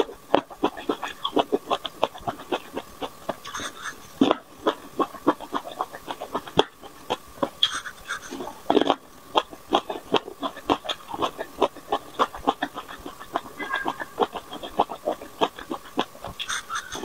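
Close-miked eating sounds: biting and chewing small round yellow fruit treats pulled off a skewer, with dense, quick clicks and crackles. A faint steady high tone sits underneath.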